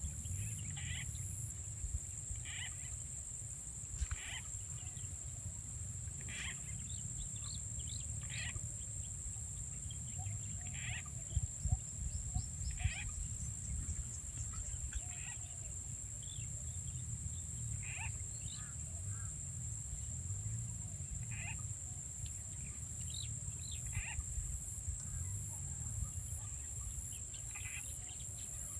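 Frogs calling: short calls repeating every second or two over a steady high-pitched insect drone, with a low rumble underneath. A few sharp knocks come about twelve seconds in.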